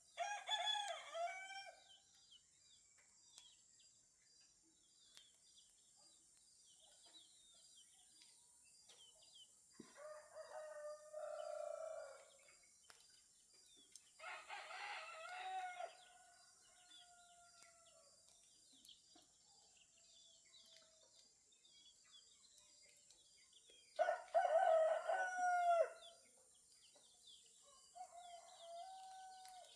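Roosters crowing, five crows in all, each about two seconds long. The crow about 24 seconds in and the one at the very start are the loudest, the others fainter. Small birds chirp faintly throughout over a steady high hiss.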